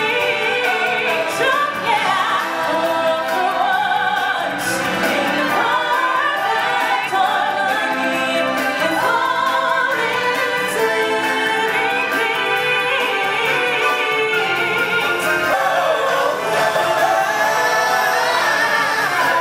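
Stage-show music with a choir and solo voices singing over an accompaniment, which keeps going without a break.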